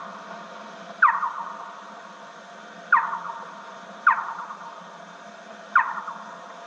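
Big brown bat echolocation pulses played back slowed down: four short chirps, each sweeping downward in pitch and trailed by fainter echoes, at uneven intervals over steady tape hiss.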